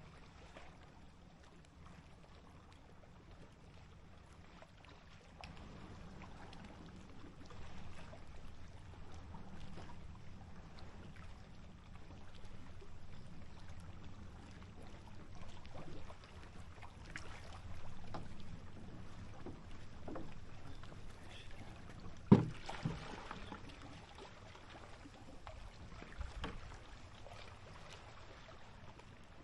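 Small waves lapping and plopping against the lake shore, with scattered little splashes and pops over a low steady rumble. One sharp knock about 22 seconds in stands out as the loudest sound.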